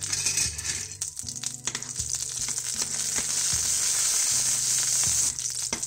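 Urad dal, spluttered mustard seeds and a dry red chilli sizzling in hot oil in a steel kadai for a South Indian tempering, with a spoon stirring and clicking against the pan. The sizzle grows louder and steadier from about two seconds in and eases just before the end.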